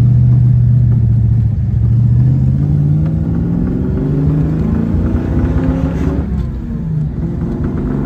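1995 Ford Mustang GT's 5.0 V8 heard from inside the cabin. The revs climb gradually for several seconds, dip briefly about six seconds in, then hold steady. The engine has been misfiring, and the owner suspects something is still wrong with it.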